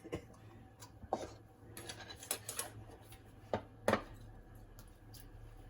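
A few light knocks and clinks of kitchen utensils against a cooking pot, the two loudest close together near four seconds in, over a low steady hum.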